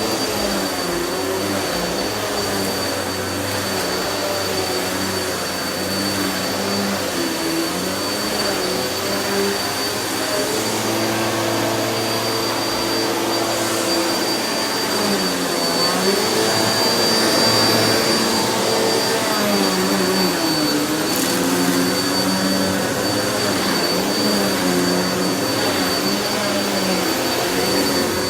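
Vacuum cleaner running without a break, with a steady high whine over the motor, whose pitch dips and recovers now and then as the load on the suction changes.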